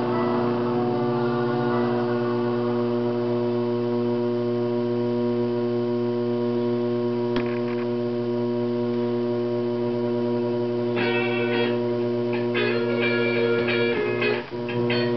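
Steady electrical hum, a low buzzing tone with a ladder of overtones. From about eleven seconds in, higher-pitched tones flicker on and off over it.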